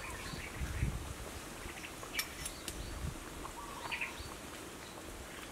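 Quiet outdoor background with faint short bird chirps scattered through it, and a couple of light clicks about two seconds in.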